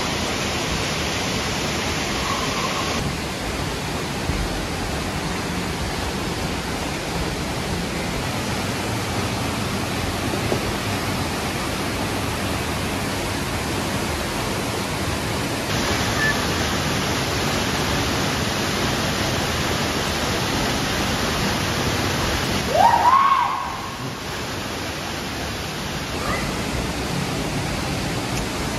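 Kozjak waterfall pouring into its plunge pool: a steady rush of falling water. About 23 seconds in, a short rising cry rises briefly above it.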